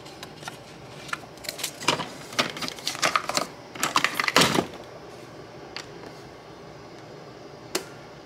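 Plastic clicks and clacks of a K-cup coffee pod being handled at a pod carousel and loaded into a Keurig brewer, a quick run of them with the loudest about four and a half seconds in. Near the end, a single click as a cup-size button on the Keurig is pressed.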